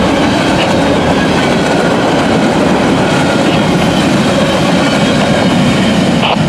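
Empty covered hopper cars of a freight train rolling past, a loud steady rumble of steel wheels on rail.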